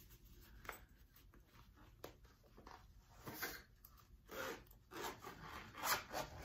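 A zipper being worked on a black fabric reusable mailer pouch: a run of short scratchy rasps mixed with the rustle of the pouch being handled, louder in the second half.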